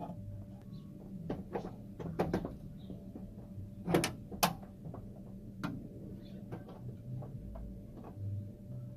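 Scattered metal clicks and knocks of a car door lock cylinder being pushed into the door and its retaining ring snapped back to lock it in place. Two sharp clicks close together about four seconds in are the loudest.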